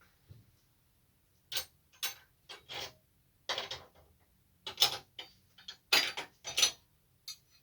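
Metal spanners clinking and clattering as they are picked through and handled: a dozen or so short, sharp clinks at irregular intervals.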